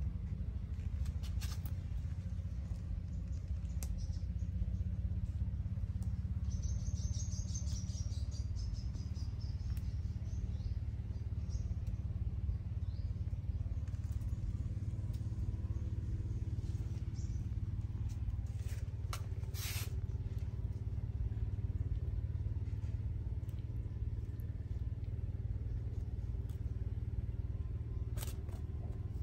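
Steady low outdoor background rumble, with a short burst of small-bird chirping about seven seconds in and a few sharp clicks scattered through.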